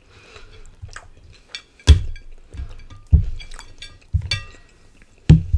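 A plate being handled and set down on a table: light clicks and four sharp knocks and clinks, spaced about a second apart.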